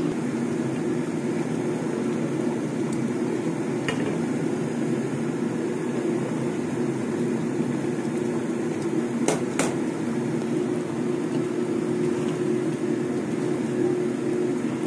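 Steady low rushing kitchen noise from cooking, with a sharp clink about four seconds in and two quick clinks near ten seconds.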